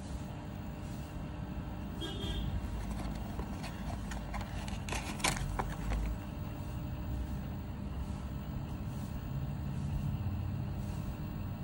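Handling noise from unboxing a smartwatch: scattered clicks and rustles of fingers on the cardboard box and its contents, loudest about five seconds in as the charging cable is lifted out. A steady low rumble runs underneath throughout.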